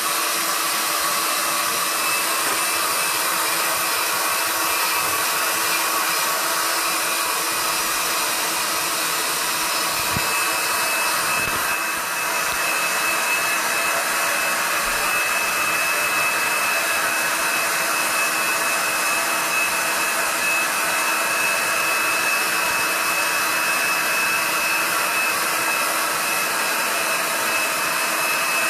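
Black+Decker heat gun running steadily, its fan blowing with a constant high whine over the airflow noise.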